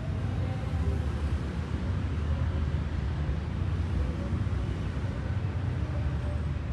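Steady low rumble with a faint hiss, unchanging throughout: background room noise.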